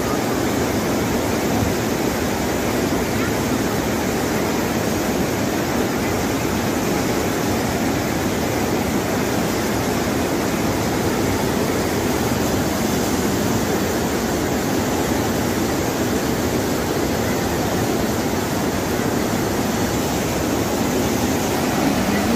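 Muddy floodwater rushing down a swollen river channel: a steady, even rush of churning water that holds at one level throughout.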